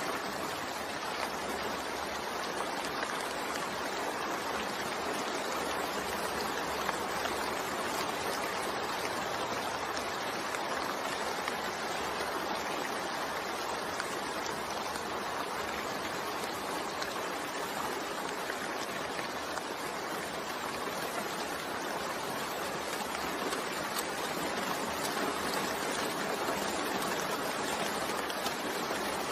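Steady rain falling, a continuous even hiss without distinct drops or breaks.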